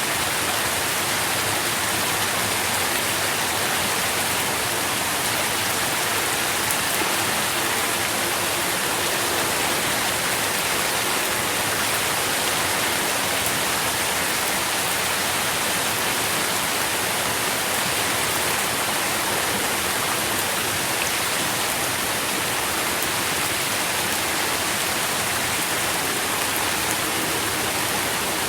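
Steady rain falling, a dense even hiss of drops with fine patter throughout.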